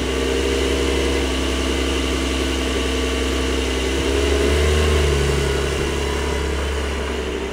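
Porsche 911 Turbo S (992) 3.8-litre turbocharged flat-six idling steadily. About four and a half seconds in, the car pulls away slowly and the engine note changes and grows slightly louder.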